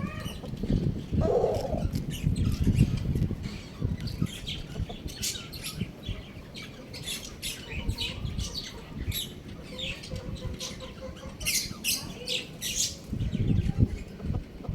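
Chickens squawking and chirping in many short, sharp high calls, coming thick and fast from about five seconds in until near the end, with a low rumbling noise underneath at the start and again near the end.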